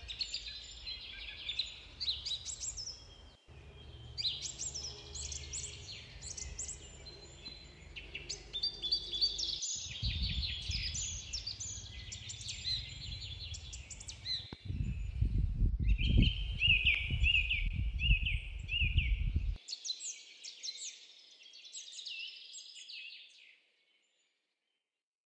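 Several songbirds chirping and trilling, with a low rumble underneath that grows stronger in the second half and breaks off abruptly a few times. The sound stops short near the end.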